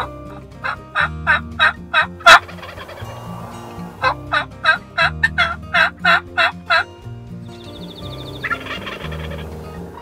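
Turkey yelping in two runs of evenly spaced yelps, about three a second: a short run of about six notes with one very loud note at its end, then a longer run of about ten a second or so later.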